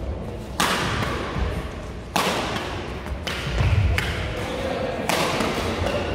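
Badminton rally: sharp racket hits on the shuttlecock about half a second, two seconds and five seconds in, each ringing on in the sports hall's echo, with low thuds of players' footsteps on the court between them.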